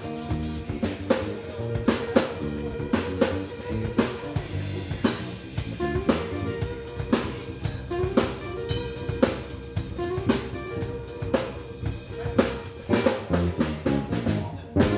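Live band playing an instrumental jazz-funk groove on drum kit and electric guitar, with steady snare and cymbal hits. It ends on one loud accented hit near the end, with the last chord left ringing.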